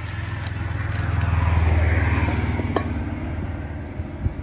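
A motor vehicle passing by, its engine hum swelling to a peak about two seconds in and then fading away. A sharp knock near the end.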